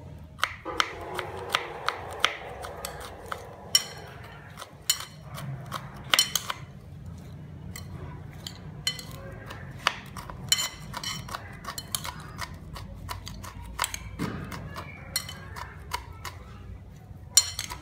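Kitchen utensils clinking and knocking against dishes and bowls during food preparation: many separate sharp strikes at an uneven pace, some ringing briefly.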